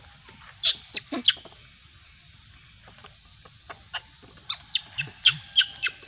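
Young macaques giving short, high-pitched squeaks and squeals as they tussle: a few about half a second to a second and a half in, then a quick run of them near the end.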